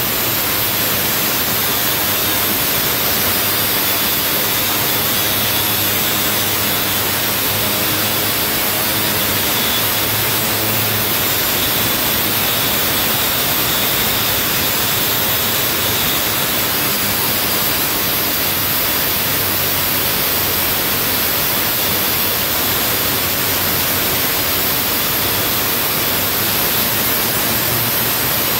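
Milwaukee M18 FUEL 2980-20 cordless 6-inch angle grinder cutting into a rusty steel door frame: a loud, steady grinding hiss. The blade is a little worn out and no longer cutting much.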